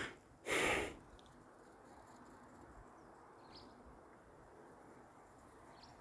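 A person's short breathy exhale about half a second in, then faint steady background hiss.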